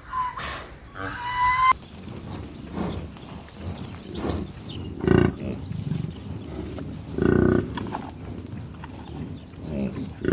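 Farm animal calls. A brief bit of higher pitched calls is cut off about two seconds in, then two loud, low calls about two seconds apart, with quieter grunting calls around them.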